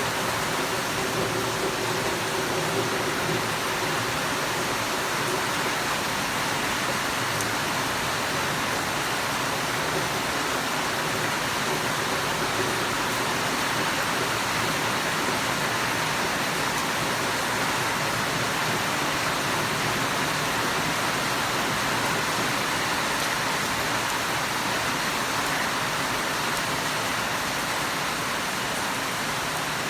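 Rain falling steadily: an even, unbroken hiss with no separate drops standing out.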